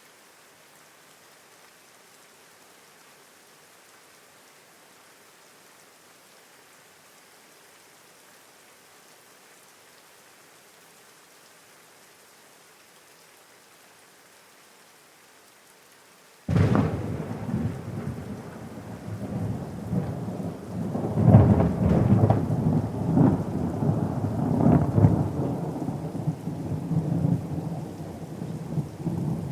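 Steady rain falling, then a little past halfway a sudden thunderclap that rolls on into long, loud thunder over the rain, peaking a few seconds after the crack.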